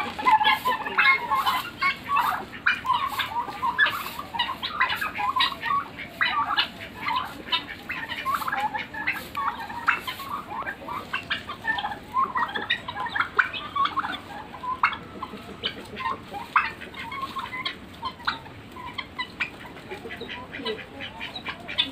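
A flock of chickens and helmeted guineafowl calling: many short clucks and chattering calls overlapping one another, busier and louder in the first half.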